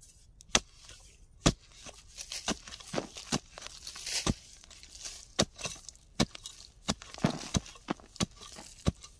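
A digging spade striking again and again into soil and roots, digging out a wild yam tuber: sharp, irregular chops, about one or two a second, the loudest two near the start.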